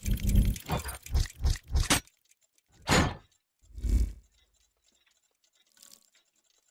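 Soundtrack music with a pulsing bass beat that stops about two seconds in. Two separate swooshing hits follow, a second apart, then near silence.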